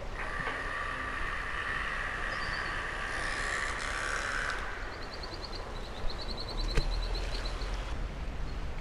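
Shallow river running over rocks, a steady rushing wash. A steady high two-note whine holds for about the first half, then a fast high trill sounds in the second half, with a single sharp click near the end.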